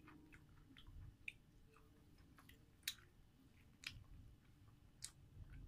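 Faint chewing and eating sounds, with four short, sharp clicks spread through.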